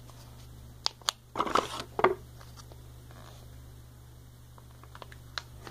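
Cardboard and paper packaging being handled: a few sharp clicks and a short crinkling rustle, then a couple of small clicks near the end, over a faint steady low hum.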